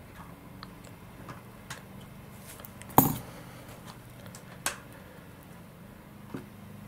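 Small hard parts and tools being handled on a workbench: scattered light clicks and taps over a low steady hum, with one sharp knock about three seconds in and two smaller clicks later.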